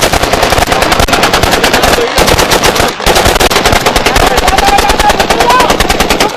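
Celebratory automatic gunfire at a wedding: rapid, continuous bursts of shots, with brief breaks about two and three seconds in.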